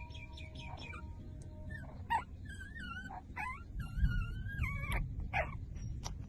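Newborn puppies, about five days old, whimpering and squeaking with short chirps and high, wavering cries, the longest and loudest between about two and five seconds in, over a low rumble.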